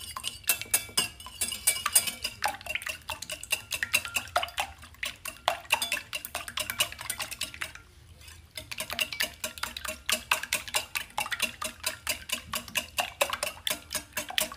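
Metal wire whisk beating two raw eggs in a ceramic bowl: rapid, rhythmic clinking of the wires against the bowl, with a brief pause about halfway.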